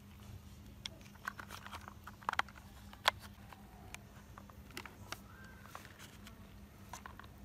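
Hard plastic toy excavator parts clicking and knocking as the cab frame is handled and fitted onto the chassis: scattered short sharp clicks, the loudest about three seconds in, over a steady low hum.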